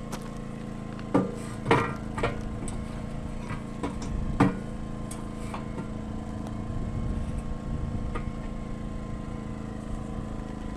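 An engine running steadily, with a few sharp knocks in the first half, the loudest about four and a half seconds in.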